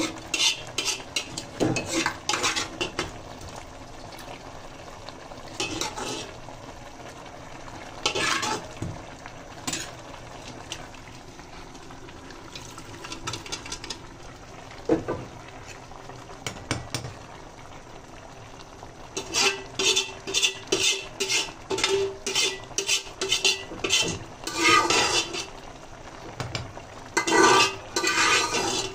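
Metal spoon stirring meat and broth in a metal cooking pot, scraping and clinking against the pot's sides and bottom. The clinks come in scattered strokes at first, then in quick runs of many strokes from about two-thirds of the way in and again near the end.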